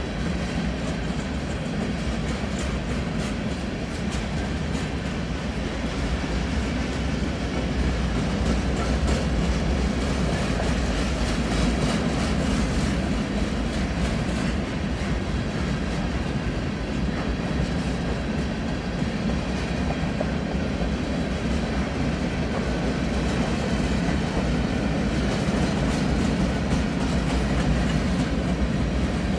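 Freight train of covered hopper cars rolling past: a steady rumble of steel wheels on rail with clickety-clack as the wheels cross the rail joints.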